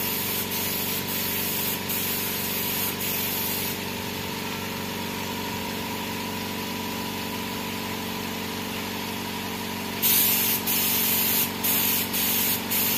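Gravity-feed spray gun hissing in short bursts as clear gloss coat is sprayed onto a metal panel, with brief breaks where the trigger is let off. The spraying stops about four seconds in and starts again about ten seconds in, over a steady machine hum.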